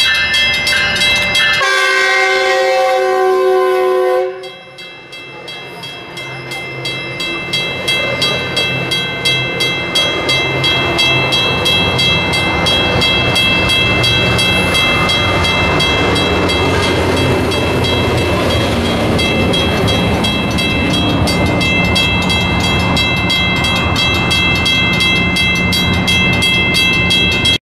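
Metrolink commuter train sounding a horn chord for about two and a half seconds, then rolling past with the rumble of its trailing diesel locomotive and the clatter of its cars, building up over several seconds. A high repeating ringing sounds behind it throughout.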